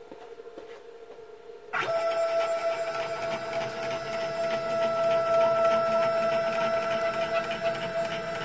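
Stepper motors of a Genmitsu PROVerXL 4030 desktop CNC router driving the spindle carriage along the gantry: a steady machine whine with two clear tones that starts abruptly about two seconds in and holds level.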